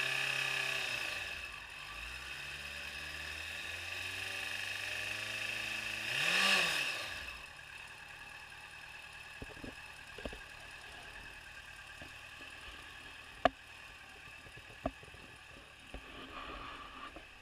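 Yamaha FZ6 Fazer S2 inline-four engine revved twice, the pitch rising and falling back, the second rev peaking about six and a half seconds in; the engine has a knock its owner is chasing. After that it goes much quieter, with a few sharp clicks, one loud one about thirteen seconds in.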